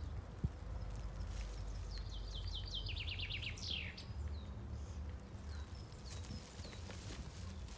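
A songbird sings a quick run of repeated falling notes, about two seconds in, ending in one longer downward slur; a few short high chirps follow. A low rumble sits underneath, with a single click near the start.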